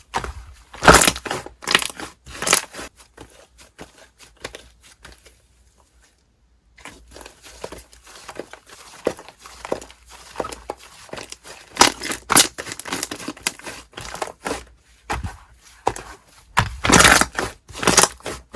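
Slime being squeezed and pressed by hand, giving irregular crackling, crunchy pops, with a brief silent break about six seconds in.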